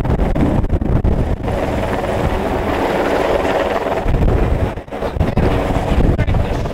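Helicopter hovering overhead, a loud steady rotor and engine noise, with its downwash buffeting the microphone.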